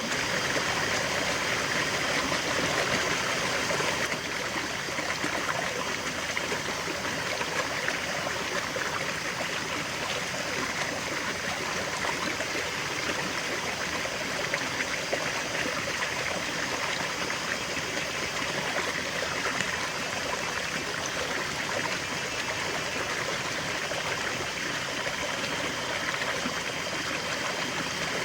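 A river flowing: steady rushing and babbling of water over stones.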